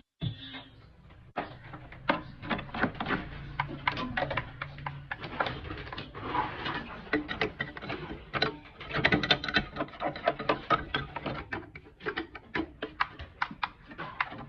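Rapid, irregular clicking and clattering of hard objects, several knocks a second, over a low steady hum.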